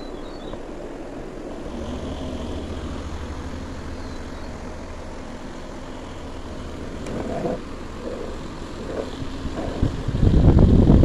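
Homemade DC-motor table fan running with a steady hum from its small motor and blades. Near the end a loud rushing of air buffets the microphone.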